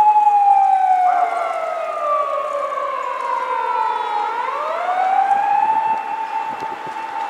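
Japanese police car's siren wailing: a held high tone falls slowly for about four seconds, then climbs back up quickly and holds steady again.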